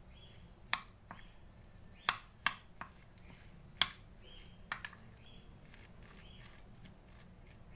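A utensil stirring a mixture of mashed boiled eggs and mayonnaise in a bowl: soft scraping, with irregular sharp clicks as the utensil knocks the bowl, mostly in the first five seconds.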